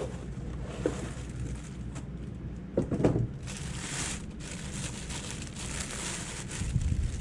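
Handling noises: a few short knocks, the loudest about three seconds in, and a stretch of crinkling in the middle, over a steady low hum.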